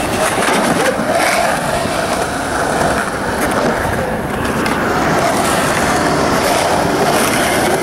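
Skateboard wheels rolling steadily over smooth concrete.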